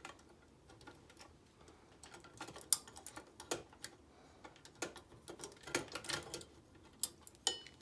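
Small metal parts of an Oliver No. 6 typewriter clicking and knocking as a shift lever is worked into place by hand: irregular light clicks, with a short ringing metal clink near the end.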